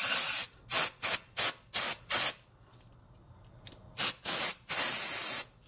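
Aerosol spray can squirting cleaner onto brake caliper slide pins. A long spray runs into the start, then come about five quick squirts, a quiet gap of well over a second, and two more short squirts and a longer spray near the end.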